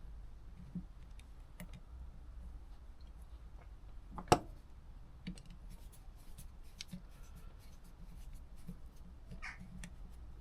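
Small scattered clicks and taps of carburettor parts and tools being handled during reassembly, with one sharp, much louder click about four seconds in.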